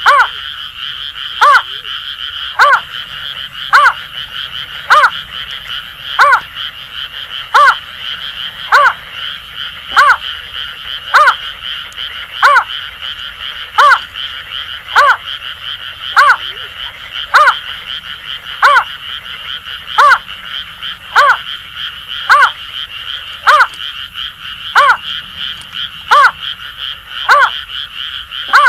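Greater painted-snipe giving a long series of short hooting calls, one about every 1.2 seconds, over a steady chorus of Asian grass frogs.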